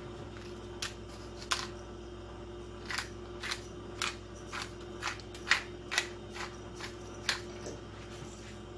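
Pot of black beans in broth simmering on a gas burner, bubbles bursting as irregular sharp pops about twice a second over a steady hum. The pops stop a little before the end.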